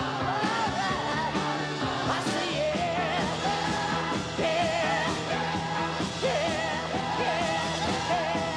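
Rock-style music with a sung vocal melody over a steady beat and bass line.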